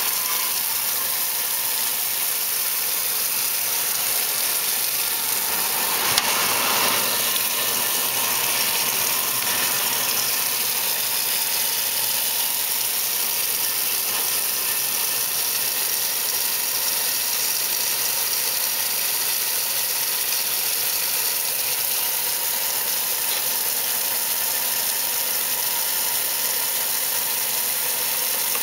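1968 Kenmore 900 series washing machine running: a steady mechanical sound of its motor and transmission, with a brief louder patch about six seconds in.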